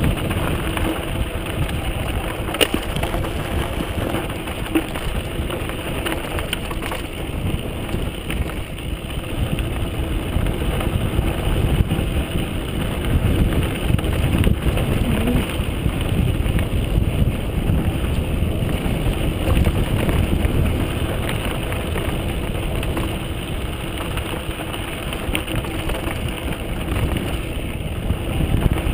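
Mountain bike rolling downhill on a dry, rocky dirt singletrack: a steady rumble of tyres on gravel and the bike rattling, with wind buffeting the camera microphone. A few sharp knocks from rocks and jolts stand out.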